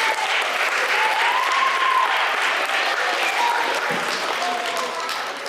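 A crowd of children applauding steadily, with a few voices calling out over the clapping.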